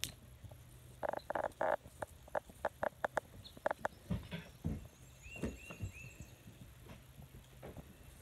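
Goat hooves knocking on a wooden doorway step and cinder block: a quick, uneven run of knocks for about three seconds, with a few more after. About halfway through come three short chirps.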